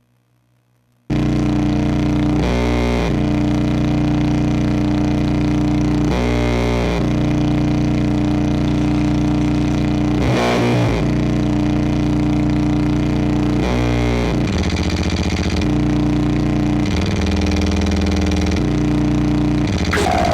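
Distorted electronic noise drone from a looped Krackatone through a drive effect. It cuts in suddenly about a second in as a dense, steady mass of held tones that shifts every few seconds. Near the end a sharp click sets off a falling pitch sweep.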